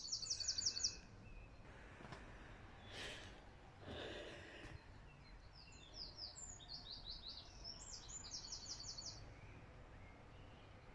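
Small songbird singing: rapid trills of repeated high, falling notes, one at the start and a longer run about six seconds in, over faint outdoor background noise. Two soft rushing swells come around three and four seconds in.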